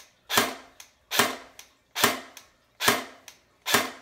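Snow Wolf airsoft Barrett .50 cal electric rifle firing semi-auto: five single shots a little under a second apart, each gearbox cycle a sharp crack followed by a fainter click.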